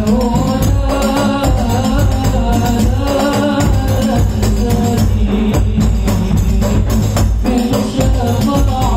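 An Indonesian Islamic devotional percussion ensemble playing: frame drums, large octagonal aluminium-framed drums and big aluminium barrel bass drums beat a steady rhythm, with voices singing a melody over them.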